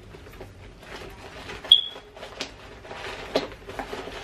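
Handling noise from a small handbag being opened and searched: rustling and light clicks, with one short, sharp squeak a little under two seconds in, the loudest sound.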